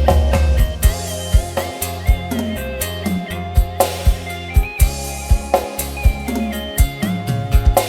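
Dangdut koplo-style music mix built for testing a sound system: sharp kendang drum strokes and a keyboard melody over a heavy, booming bass.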